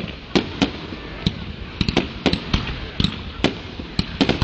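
Fireworks bursting in the sky: a quick, irregular series of about ten sharp bangs.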